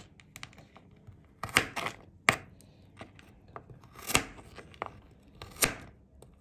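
Kitchen knife cutting garlic cloves on a cutting board: a few scattered, irregular knocks with small ticks and light papery rustling between them.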